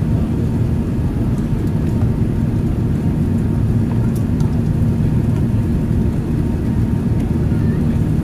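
Steady cabin noise of an Emirates Airbus A380 in flight: the constant low rumble of its turbofan engines and the airflow, with a steady low hum running through it.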